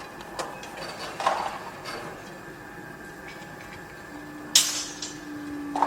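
Construction-site noise: a steady machine hum under irregular metallic knocks and clanks, the loudest a sharp clatter about four and a half seconds in. A low steady tone joins about four seconds in.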